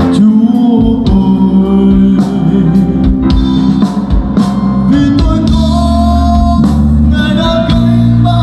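Live band music: a man singing into a microphone over electric guitar, drum kit and electronic keyboard, amplified and loud.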